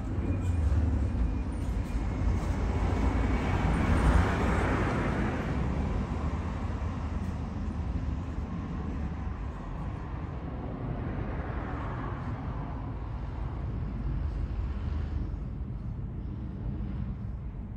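Outdoor road traffic: a steady low rumble, with passing vehicles that swell and fade, the louder one about four seconds in and a weaker one about twelve seconds in.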